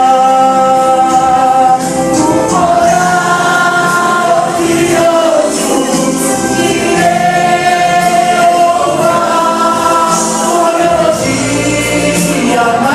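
A gospel vocal group singing in harmony with long held notes, over musical accompaniment.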